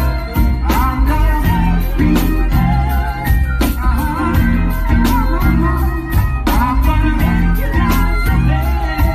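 Live reggae band music with a heavy bass line and drum hits, and a melody above it that wavers in pitch.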